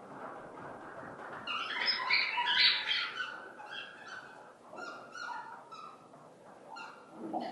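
A dog whining: a loud run of high cries about two seconds in, then a string of shorter whines.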